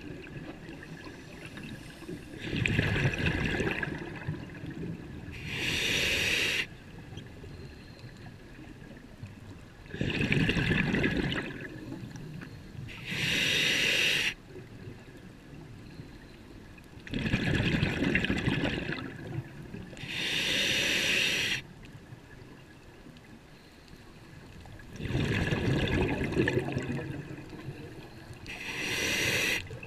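Scuba regulator breathing underwater: four slow breaths about seven seconds apart. Each is a couple of seconds of bubbling exhaust from the exhale, then a hiss about a second long from the inhale through the regulator.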